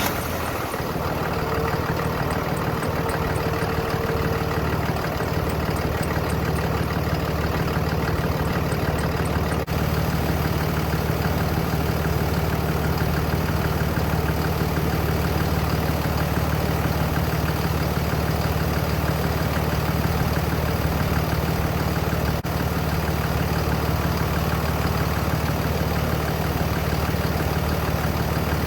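Car engine idling steadily just after being started, with a faint high whine for a few seconds near the start.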